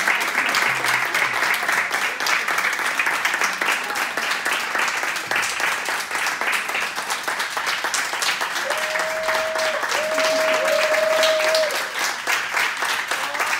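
A small group applauding together, dense and continuous clapping at a steady level.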